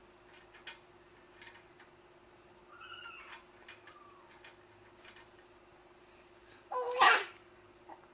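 One sharp hiccup about seven seconds in: a brief squeaky onset, then a noisy burst. A fainter squeak comes near three seconds, among light clicks.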